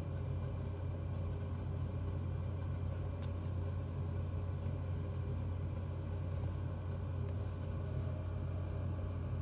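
Steady low background hum with no speech, and a couple of faint clicks as a small cardboard board book is closed and turned over in the hands.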